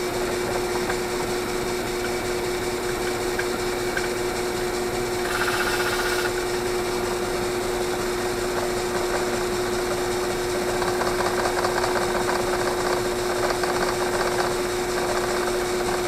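Drill press running steadily with a bit spinning in the chuck, machining down the old rubber seal in a Zoeller M53-D sump pump housing to reface it. A steady hum throughout, with a brief harsher hiss about five seconds in.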